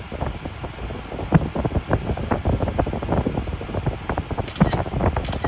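Wind buffeting the phone's microphone: a low rumble with irregular crackles, and a couple of sharper pops near the end.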